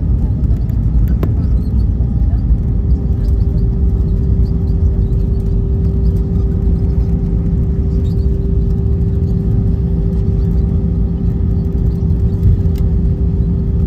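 Steady rumble of engine and airflow noise inside an Airbus A320 cabin, heard from a window seat. A steady hum tone joins it about two and a half seconds in.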